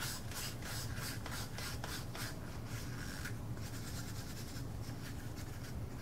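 Stir stick scraping around the sides and bottom of a mixing cup while stirring resin: quick, regular strokes, about four a second, that grow fainter about halfway through.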